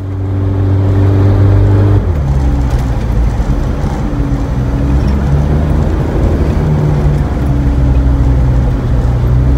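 Mitsubishi Pajero's 2.8-litre 4M40 four-cylinder turbo diesel running under way, heard from inside the cabin. Its note shifts about two seconds in, then rises and falls a little.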